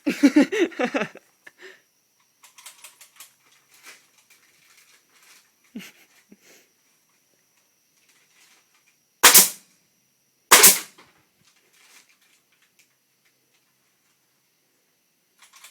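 Two sharp shots from a nail gun, just over a second apart, each with a short ringing tail.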